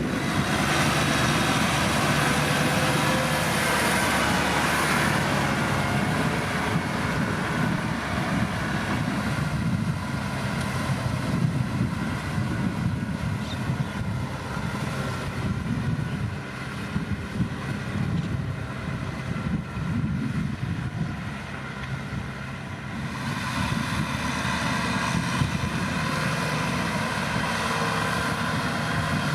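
Kubota tractor's diesel engine running steadily while ploughing through mud. It eases off for several seconds past the middle, then picks back up.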